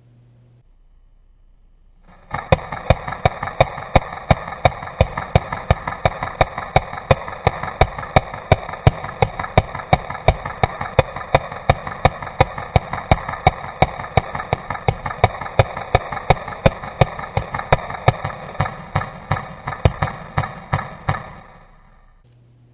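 Black Ops M4 Viper airsoft rifle firing one long continuous burst of about nineteen seconds. Sharp shots come at about three a second over a steady whirring, and the burst starts and cuts off abruptly.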